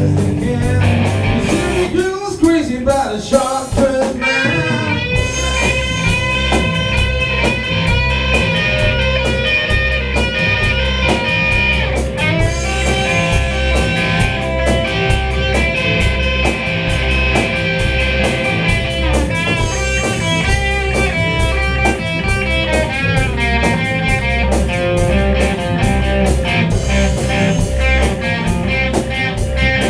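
Rock band playing live: a bending electric guitar lead over bass guitar and a steady drum beat, with no vocals. The bass and drums drop back briefly about two seconds in, then the groove picks up again.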